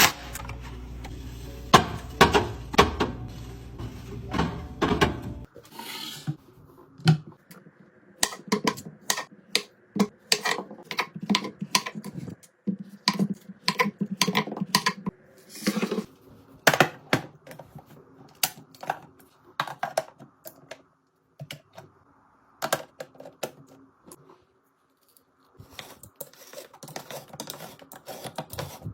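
Irregular sharp clicks, taps and clunks of containers and packaged items being handled and set down while a fridge is restocked. The sound changes abruptly about five seconds in, as one clip cuts to another.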